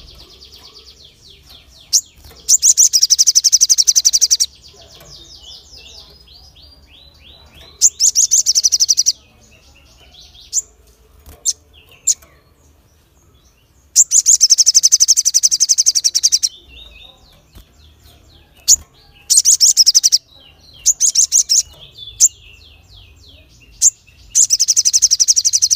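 Male olive-backed sunbird (sogon) singing in full voice: six loud, high, rapid trills of one to two and a half seconds each. Between the trills come softer runs of quick down-slurred chirps and a few single sharp chips.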